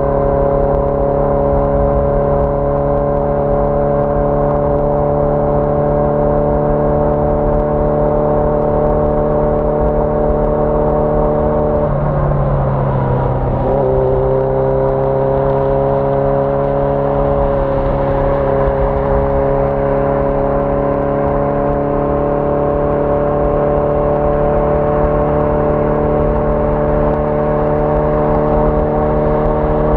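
1981 Yamaha XJ650 Maxim's air-cooled inline-four engine running at steady cruising revs under way. About twelve seconds in the note breaks briefly for a gear change and comes back lower, then climbs slowly as the bike picks up speed.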